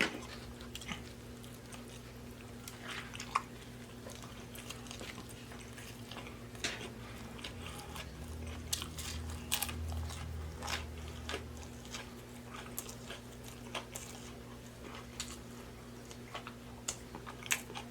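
Close-miked chewing and biting of a stacked triple-decker fish sandwich, heard as scattered soft mouth clicks over a faint steady hum.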